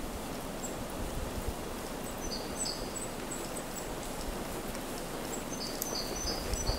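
Steady background noise, with short high-pitched chirps in two clusters, about two and a half seconds in and again near the end.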